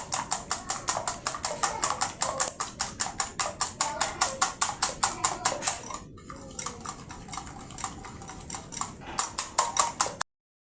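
A utensil rapidly beating eggs with sugar and cinnamon in a bowl, clicking against the bowl about five strokes a second. The beating pauses briefly about six seconds in, resumes, and cuts off suddenly near the end.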